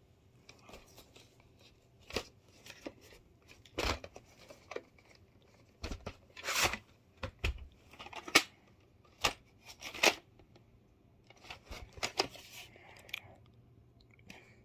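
A plastic VHS cassette and its case being handled: scattered sharp clicks and knocks, some loud, with brief rustling as the tape is taken out and turned over.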